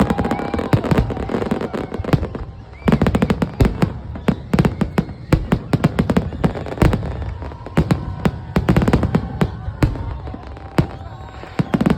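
Fireworks going off in rapid volleys of bangs and crackles. A short lull comes about two seconds in, then a dense burst of bangs follows.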